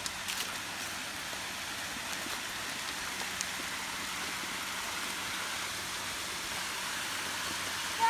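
Steady rush of water from a small waterfall of acid mine drainage pouring down a rock face from an abandoned coal mine, getting gradually louder.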